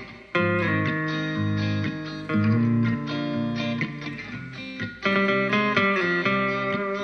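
Instrumental guitar music, with electric guitar chords changing every second or so.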